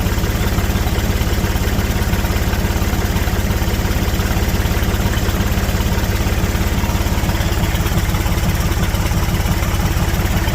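Massey Ferguson diesel tractor engine idling steadily with an even firing beat, warming up just after a cold start at 5 °F, with its glow plugs being cycled to help it run smoothly.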